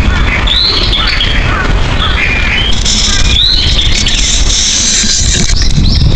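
Wild birds chirping and calling in short, arching notes over a steady low rumble; a higher hiss joins about three seconds in.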